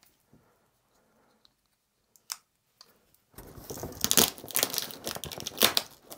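A few faint clicks, then from about three and a half seconds in, loud crinkling and crackling of packaging as a boxed figure is pulled free of it.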